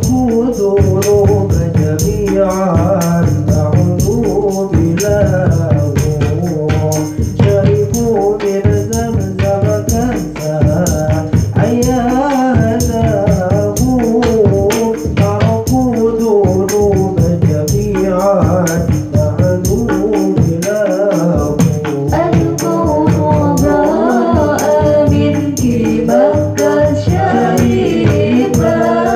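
Sholawat sung by a voice through a microphone over rebana frame drums struck by hand in a steady, busy rhythm, with the jingle of kecer cymbals on top.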